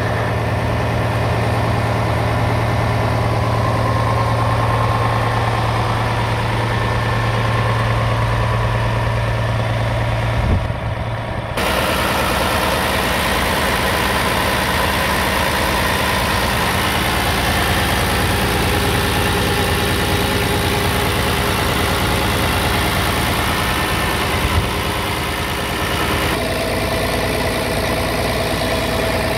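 Scania P-series truck's diesel engine idling steadily, heard close up in the open engine bay. The sound changes character abruptly about a third of the way in, and again near the end.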